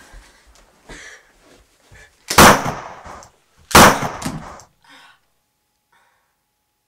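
Two loud gunshots about a second and a half apart, each followed by a short decaying tail.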